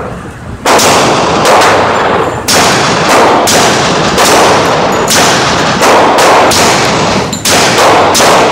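SilencerCo Osprey 45K–suppressed FNP-45 pistol firing a string of Federal 230-grain subsonic .45 ACP rounds at an indoor range, each report ringing on into the next.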